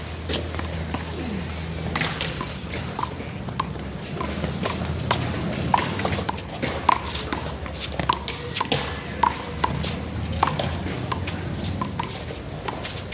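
One-wall handball rally: a small rubber ball slapped by hand and smacking off a concrete wall and the ground, an irregular run of sharp smacks several times a second.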